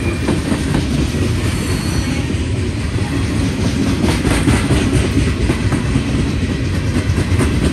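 Freight train's tank cars and gondolas rolling past close by: a steady rumble of steel wheels on the rails, with the clickety-clack of wheelsets over rail joints, busiest about halfway through.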